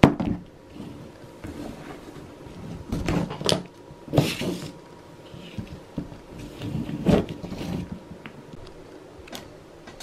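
Handling noise from a worn washing-machine suspension rod being taken apart by hand: the metal rod and its plastic cap and piston knock and click against each other and the tabletop, with a sharp knock at the start and several more scattered through.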